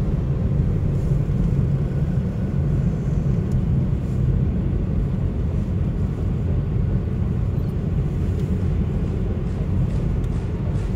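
Steady low rumble of a car driving, heard from inside the cabin: road and engine noise without change.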